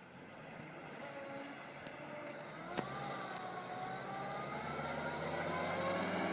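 Distant off-road truck approaching, its engine growing steadily louder. From about three seconds in, a whine slowly rises in pitch, with a single sharp click at the moment it starts.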